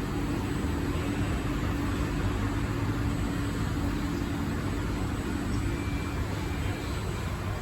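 Steady hum and hiss inside a stationary SMRT C151A metro carriage, the running of its ventilation and air-conditioning, with a low hum that fades out about halfway.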